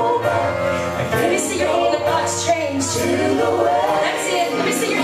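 Live worship band with a group of singers performing a gospel song, several voices singing together over the band.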